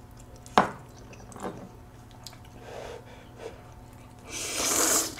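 A person slurping a mouthful of Jjapaghetti black-bean noodles off chopsticks: one loud, hissing slurp about a second before the end. A sharp mouth click comes about half a second in, followed by soft smacking sounds.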